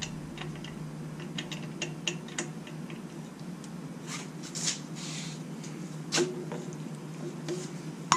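Light, scattered metal clicks and rattles as a belt tensioner's bolt is handled and started by hand, over a steady low hum.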